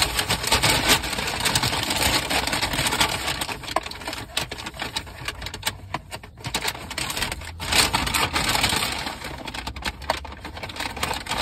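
Takeaway food packaging crinkling and rustling as it is handled, with many small clicks and taps, briefly quieter about halfway through.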